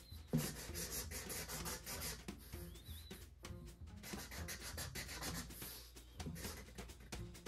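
Sharpie permanent marker scratching and rubbing over a cardboard comic storage box in many short, irregular strokes, with a single knock about half a second in.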